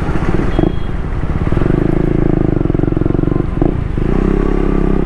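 KTM 250 Duke motorcycle's single-cylinder engine running under way, with the note briefly breaking twice, about half a second and three and a half seconds in, then holding steady.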